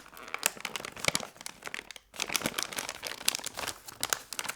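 Packaging crinkling and rustling as it is handled close to the microphone: a dense run of sharp crackles with a short pause about two seconds in.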